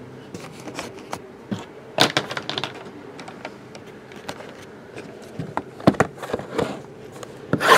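Shrink-wrapped cardboard card boxes being handled and set down on a table: scattered light knocks and rustles, the loudest near the end.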